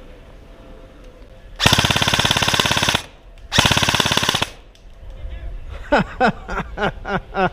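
Airsoft gun firing two rapid full-auto bursts, the first a bit over a second long, the second just under a second. Near the end comes a string of short, falling-pitched voice sounds.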